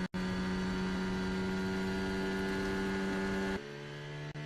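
Formula 1 car's turbo V6 engine heard onboard, holding a steady note. About three and a half seconds in it cuts abruptly to a lower, quieter steady note.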